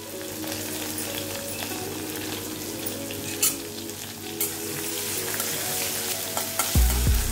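Green chillies sizzling in hot oil in an iron kadhai, a tempering of cumin, asafoetida and chillies, with a spatula stirring them and a few light clicks. A loud low thump comes near the end.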